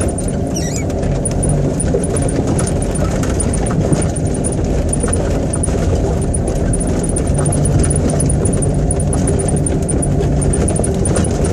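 A Jeep's engine running as it drives over a rough dirt trail, with steady low engine and drivetrain noise and frequent small knocks and rattles from the jolting over bumps and dips.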